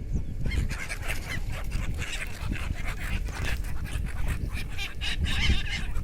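A flock of many birds calling at once, short overlapping calls in a dense chatter, over a steady low rumble.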